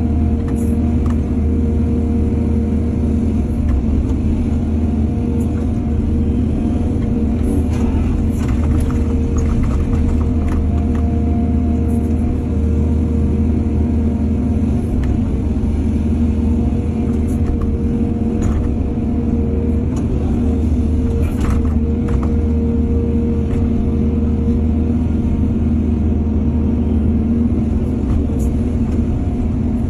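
Heavy diesel engine of an excavator running steadily at an even pitch, with a few brief knocks and clanks from the machine at work loading soil.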